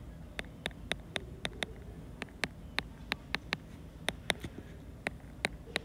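Stylus tip tapping and clicking on a tablet's glass screen while numbers are handwritten: a run of quick, irregular sharp clicks, about three or four a second.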